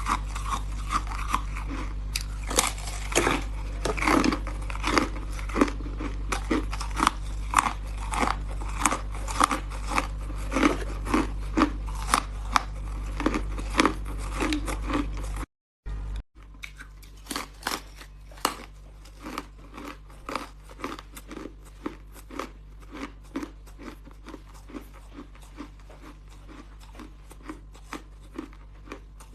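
Hard ice being bitten and chewed close to the microphone: a dense run of sharp cracking crunches, several a second, over a low steady hum. About halfway through, the sound cuts out briefly, then the crunching carries on quieter.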